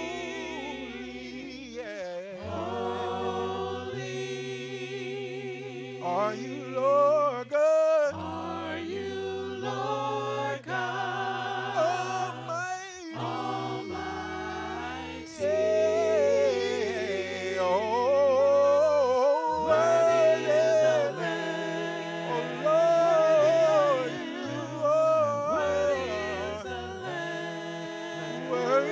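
Gospel worship singers, a lead voice with backing vocalists, singing slow sustained lines with vibrato over held low chords that change every couple of seconds.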